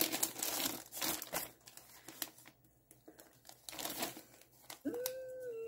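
A plastic mailer bag crinkling and rustling as hands handle it and pull it open, busiest in the first second or two. Near the end a short held vocal hum.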